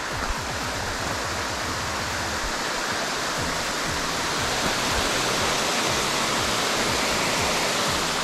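Steady rushing noise of flowing water, with music faintly underneath.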